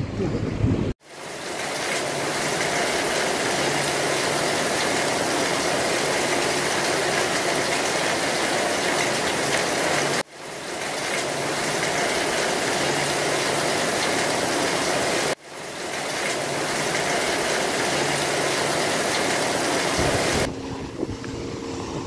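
Steady, dense hiss of rain falling. It starts abruptly about a second in, cuts out suddenly twice more, around ten and fifteen seconds in, and each time comes back within a second.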